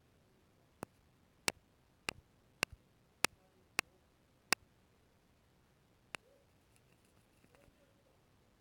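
A run of eight sharp, crisp taps, about one every half second or so, then faint soft handling sounds near the end.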